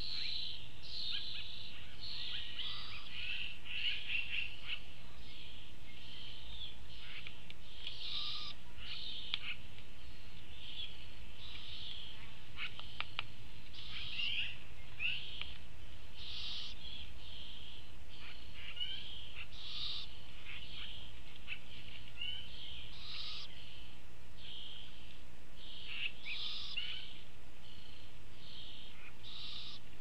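Young great horned owls calling at the nest, a string of short, high calls about once a second, over a faint steady low hum.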